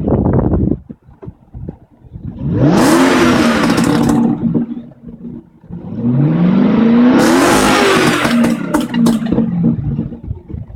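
FPV GT-P's Boss 335 V8 blipped twice, heard from the exhaust end, the revs rising and falling each time, the second blip longer. The exhaust crackles as the revs fall.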